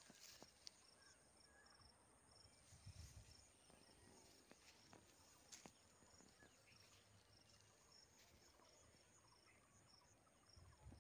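Near silence: faint insect chirping in a regular pulsing pattern, with a few soft clicks.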